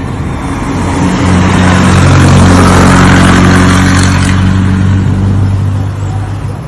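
A motor vehicle's engine running with road noise. The sound swells from about a second in to a peak, then fades toward the end, like a vehicle passing close by.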